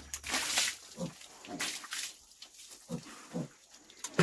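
Black pigs grunting in short low grunts, with water splashing twice in the first two seconds as it is tipped from a metal bowl onto them.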